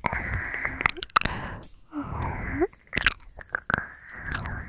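Close-miked wet mouth sounds: sharp smacks and clicks of lips and tongue, with breathy stretches in between.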